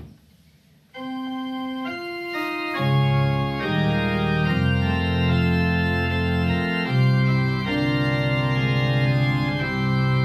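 Organ playing a hymn introduction: a few held single notes start about a second in, then full chords with a low bass line come in about three seconds in.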